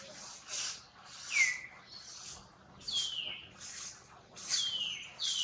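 High-pitched animal calls, each sliding quickly downward, about four of them a second or so apart.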